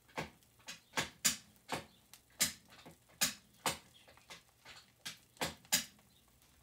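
Hot oil popping and spitting in a cast-iron skillet around frying pancakes: about a dozen sharp, irregular pops.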